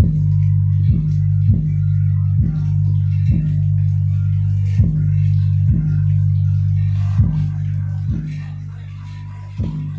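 Kenwood SW-501 12-inch subwoofer playing music loudly: a deep, steady bass line with sharp note attacks every half second to a second. The level eases off about eight seconds in.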